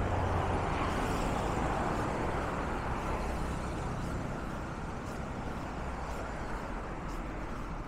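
Road traffic on a city street: cars and motorcycles passing, a steady rush of engine and tyre noise. It is loudest in the first couple of seconds as a vehicle goes by close, then eases a little.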